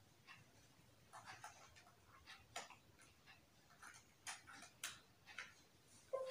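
Faint, irregular clicks of keys and the touchpad being pressed on an HP ProBook laptop, a dozen or so scattered taps.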